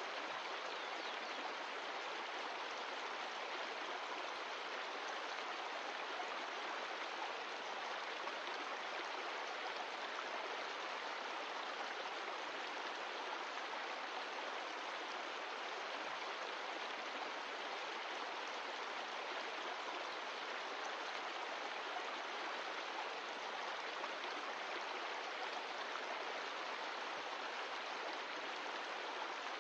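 Mountain stream of glacial meltwater rushing and splashing over rocks in a steady, even wash of water noise.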